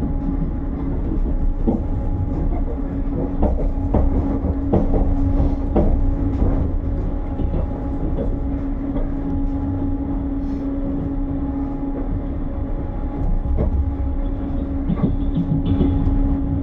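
Passenger train carriage in motion, heard from inside: a steady rumble with a constant hum and irregular clicks and knocks from the wheels on the rails.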